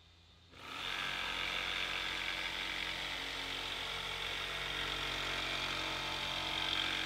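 Electric jigsaw cutting through a plywood board. It starts about half a second in and then runs steadily.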